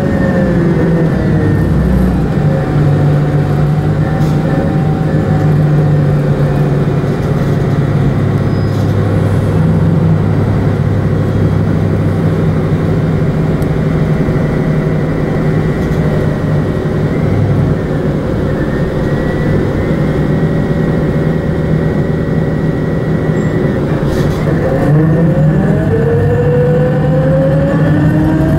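City bus engine and drivetrain heard from on board while driving: a steady low drone with road noise. A whine falls in pitch near the start and rises again near the end.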